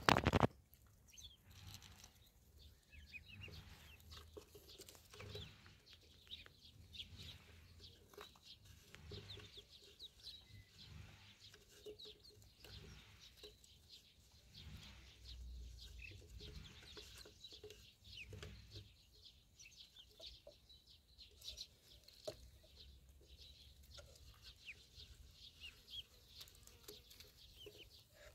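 Ducklings peeping softly while they peck and forage, with many small ticks and rustles from their bills in the grass and feed. A few loud knocks right at the start come from a duckling pecking close to the microphone.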